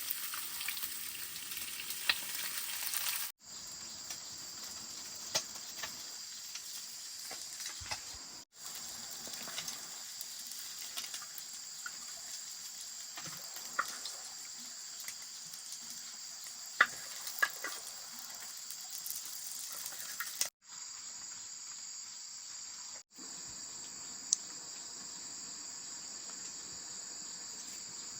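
Stream fish frying in a pan: a steady sizzle with scattered sharp pops. The sound drops out abruptly four times.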